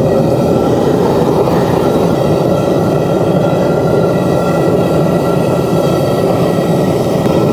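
Propane forge burner running with a steady, even rush of flame while steel nail stock heats inside.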